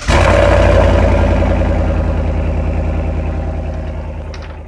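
An engine catches and idles with an even, pulsing beat, loud at first and fading away steadily over about five seconds.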